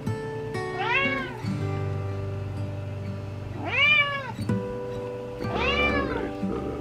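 Domestic cat meowing three times, long whining meows that each rise and then fall in pitch, over background music.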